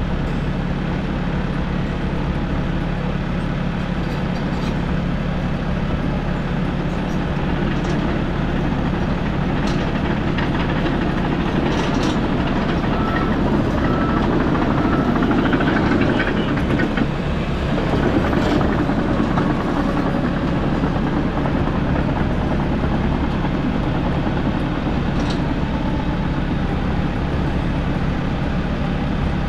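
Kobelco excavator's diesel engine running steadily, working a little harder for a few seconds in the middle, with a few sharp metallic knocks.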